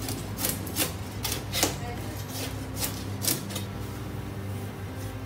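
A long knife cutting through a whole sea bream on a plastic cutting board: a series of sharp clicks and taps of the blade, about two a second and thinning out after the middle, as the fish is split open to be butterflied for grilling. A steady low hum runs underneath.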